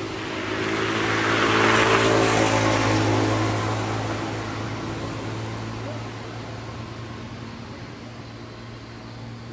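A motor vehicle passing by: its noise swells to a peak about two seconds in, then fades over the next few seconds, over a steady low engine hum.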